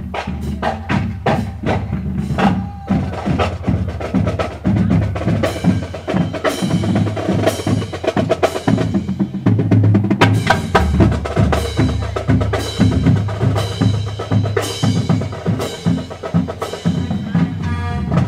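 Marching band playing as it marches past: drums beat a steady, driving rhythm, and brass and saxophones play over them.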